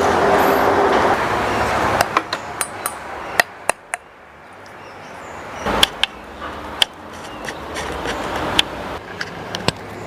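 Steady traffic-like noise for about two seconds, then a scatter of sharp clicks and knocks, with a stronger thump about six seconds in.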